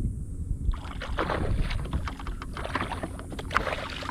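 Water splashing and sloshing irregularly at the side of a fishing kayak, starting about a second in, over a low rumble of wind on the microphone.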